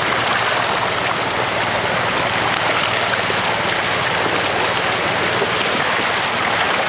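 Water rushing steadily out of a fish-stocking truck's tank and down the release slide into the lake, carrying stocked trout out with it.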